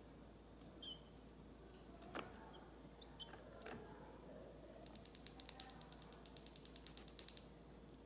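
A rapid, even run of sharp ticks, about ten a second for some two and a half seconds, coming after a few scattered faint clicks and a brief high chirp.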